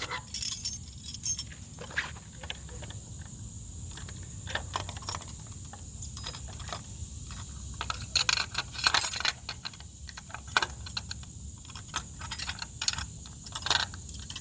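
Irregular light metallic clinks and rattling of steel gate-latch hardware being handled and fitted against a metal gate, in scattered clusters.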